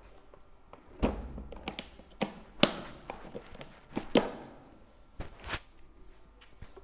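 Plastic Makita tool carrying case being closed: a series of sharp plastic knocks and clicks as the lid comes down and is pressed and latched shut, the loudest about two and a half seconds in.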